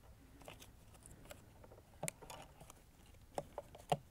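Faint scattered clicks and light handling noise from a plastic control unit as a 9-volt battery is fitted into its battery compartment, with a few sharper clicks near the end.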